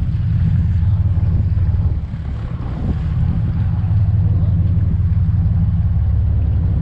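A boat's engine running steadily with a low drone, briefly dropping in level about two seconds in.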